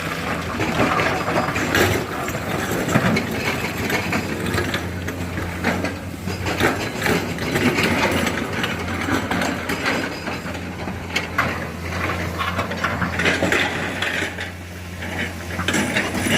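Excavator diesel engine running steadily under irregular clattering and knocking of rock being handled by the bucket.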